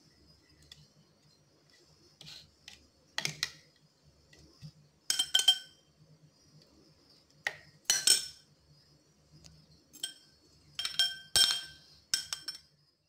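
Metal spoon clinking against a glass bowl while scooping out chopped mint in lemon water: a series of sharp clinks at irregular intervals, some in quick pairs, each with a short ring.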